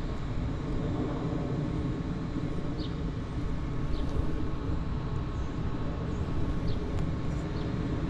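Steady low outdoor rumble with no distinct events, and a few faint short high chirps now and then.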